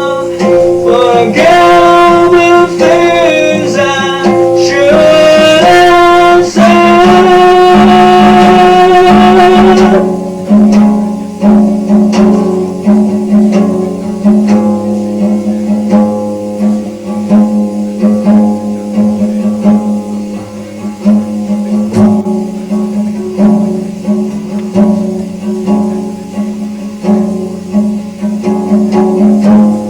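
Blues played on guitar: a sung or held melodic line bends over the chords for about the first ten seconds, ending on a long held note, then the guitar carries on alone with quieter picked notes.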